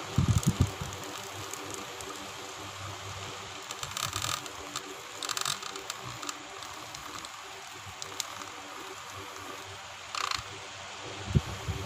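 Short, scratchy scrapes of a small toy-car motor's metal shaft worked against the plastic edge of a phone's back cover to scrape off old glue: a couple about four and five seconds in and one more near ten seconds. A few low handling bumps come at the very start.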